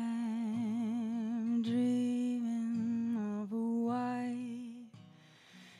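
A woman singing a slow melody in long held notes with vibrato, over a quiet acoustic guitar accompaniment; the singing stops about five seconds in.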